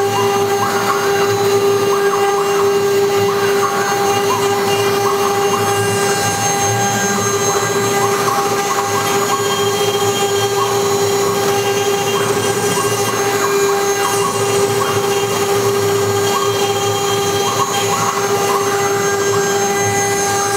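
Spindle of a Twitte 737-series CNC rotary milling machine running at a steady high-pitched whine while its fine carving bit mills a wooden baluster, with an irregular crackle from the cutter chipping the wood.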